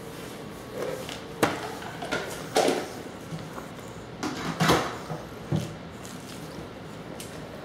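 A baby's hands patting and slapping a plastic high chair tray, a handful of irregular knocks, the loudest about a second and a half, two and a half and four and a half seconds in.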